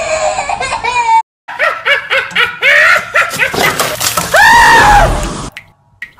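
A girl laughing in quick repeated bursts, then one long, very loud scream close to the microphone that cuts off suddenly. It opens with the end of a held sung note from a music track.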